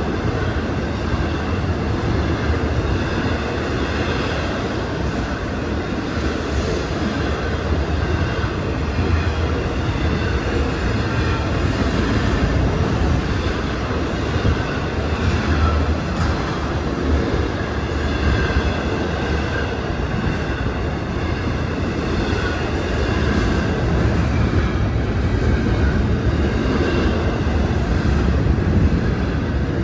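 Florida East Coast freight train's intermodal cars, flatcars with highway trailers and then double-stack containers, rolling past at speed. It makes a steady, loud rumble of steel wheels on rail.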